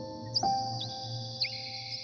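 Ambient relaxation music of long held, ringing tones, a new tone striking about half a second in, with several short, high bird chirps over it.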